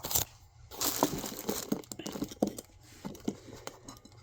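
Plastic bread bag crinkling and rustling in bursts, with small clicks, as hot dog buns are taken out of it.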